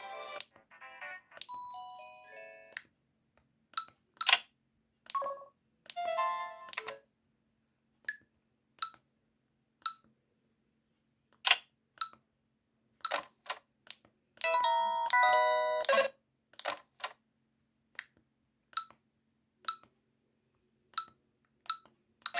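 LG S5100 mobile phone playing its built-in electronic tones: several short melodic jingles, a longer chiming jingle about two-thirds of the way through, and many single short beeps about a second apart.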